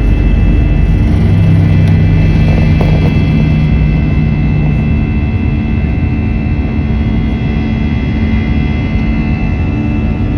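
Airliner's jet engines running at high power during takeoff: a loud, steady rumble with a constant high whine over it.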